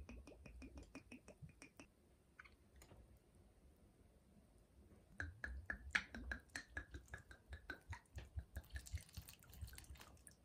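Water poured from a glass bottle into houseplant potting soil, glugging and trickling in quick ticks. It comes in two spells, the first over the opening two seconds and the second, a little louder, from about five to about eight seconds in.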